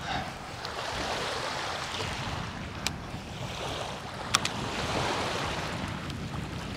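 Small waves lapping on a shingle shore, with wind on the microphone. Two short sharp clicks, about three and four and a half seconds in.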